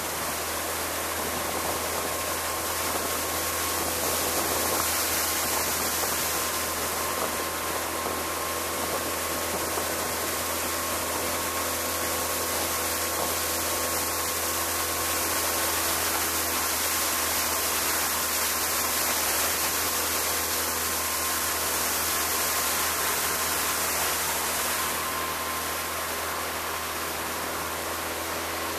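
Outboard motor running at a steady speed, under a constant rush of wind and water on a moving boat.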